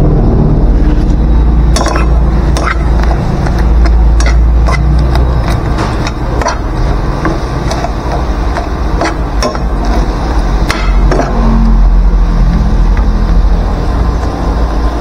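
A metal spoon clinks and scrapes against a metal frying pan of shrimp cooking on a gas stove, many times over several seconds. A steady loud low rumble runs beneath it.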